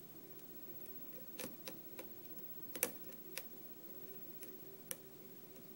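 Small, sharp metallic clicks at irregular intervals from a hook pick lifting pins in a pin-tumbler lock cylinder under light tension, a few close together and the loudest near the middle. These little clicks here and there are, as the picker puts it, probably from serrated pins.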